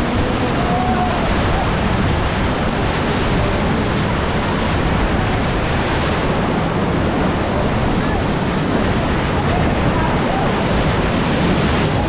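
Whitewater rapid rushing loudly and steadily around an inflatable raft, the river breaking in standing waves on every side.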